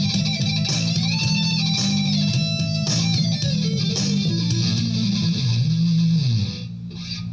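Grunge-style rock music: electric guitar and bass over a steady drum beat. The drums stop about five seconds in, the bass slides, and the music drops in level near the end.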